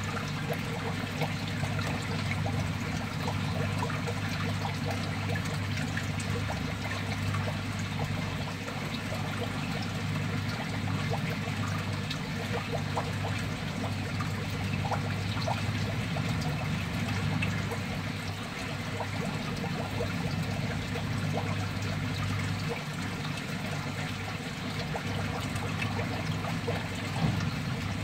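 Water trickling and splashing steadily in a plastic crab-fattening tub, over a steady low hum.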